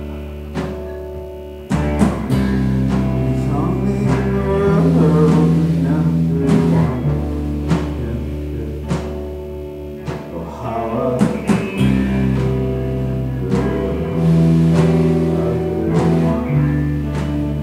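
Live rock band playing: guitars and bass holding sustained chords over drum hits and cymbals, with a voice singing in places.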